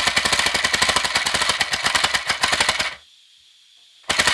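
3D-printed compressed-air engine with a BB-ball valve running on 60 psi, giving a rapid clatter of air puffs. About three seconds in it stops suddenly, and near the end a flick of the flywheel by hand sets it running again.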